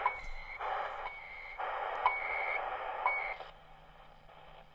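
XHDATA D-220 pocket shortwave radio being tuned in steps. Its speaker puts out a burst of static about once a second, each with a click and a short steady whistle, and goes quiet for the last second or so.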